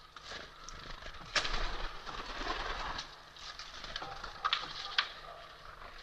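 Eurasian collared dove's wings flapping in a noisy rustle as it settles on a wicker feeding basket, starting sharply about a second and a half in, followed by two sharp taps near the end.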